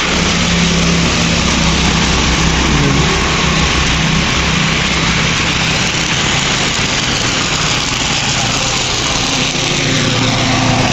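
Steady hiss of rainfall, with the low, even hum of an idling engine underneath.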